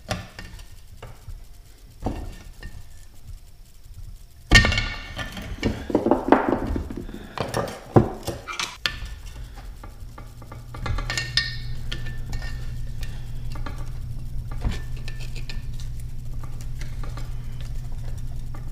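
Flat screwdriver scraping, clicking and clinking against metal as it pries the old brass-cased upper drive-shaft seal out of a 1976 Evinrude 25 hp outboard lower-unit gearcase. The scraping is busiest in the middle; the seal is stiff after long service. A steady low hum comes in about halfway through.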